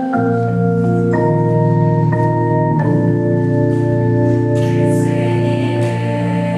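Electronic keyboard playing sustained organ chords, the held chord changing every second or so as the song's slow introduction. A brief high hiss sounds a little past the middle.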